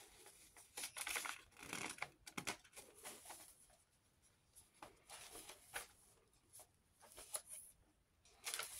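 Paper pages of a handmade junk journal rustling and brushing as they are turned and handled, in a string of short, soft rustles with brief pauses between.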